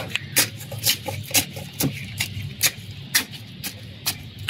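A hand tool jabbing down into potting soil and kitchen scraps, giving a steady run of sharp clicks about two a second.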